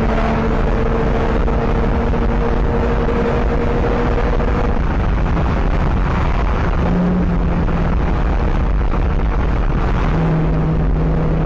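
Car interior at highway speed around 100 mph: a loud, steady rush of road and wind noise with the engine and exhaust droning underneath, the drone's pitch holding steady and then dropping a little after about five seconds.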